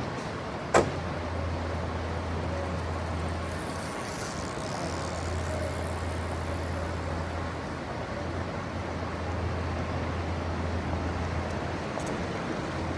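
Light city street ambience: a steady low traffic rumble, with one sharp knock just under a second in.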